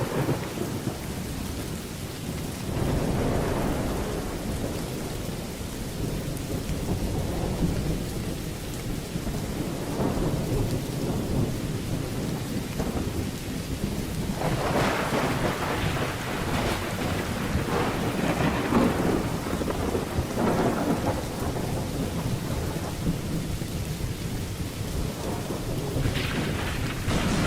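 Steady heavy rain with rolling thunder rumbling underneath, swelling in several waves, the longest a little past the middle.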